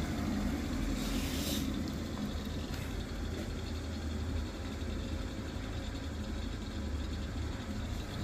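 Baxi Roca gas combi boiler firing with its casing open: a steady low rumble of the lit burner, with a brief hiss about a second in.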